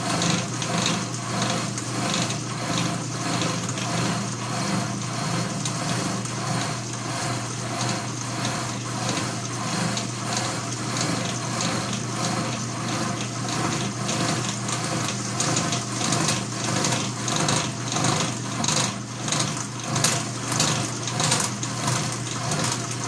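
Atlas horizontal milling machine running, its cutter taking a slotting cut in a stainless steel piston valve while the knee is fed up by hand. A steady hum with a regular pulsing cutting sound over it.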